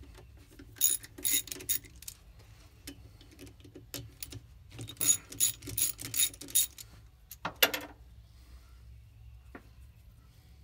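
Hand socket ratchet clicking in quick runs as alignment bolts are run into a fluid flywheel flange. There is a short run about a second in, a longer one around five to six and a half seconds, and a last brief pair of clicks near eight seconds.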